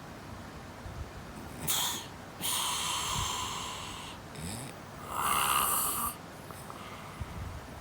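A sleeper snoring: a short breath about two seconds in, a long breathy one right after, and a louder breath about five seconds in, with quiet gaps between.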